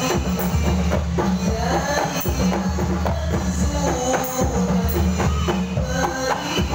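Sholawat singing: a man's voice sung through a microphone over a hadrah ensemble of rebana frame drums with jingles, beating a steady rhythm.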